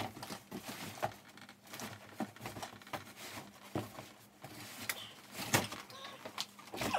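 Cardboard scraping, rustling and knocking as a bicycle wrapped in cardboard packing is pulled up out of its large cardboard shipping box, in irregular bursts with the loudest knock about five and a half seconds in.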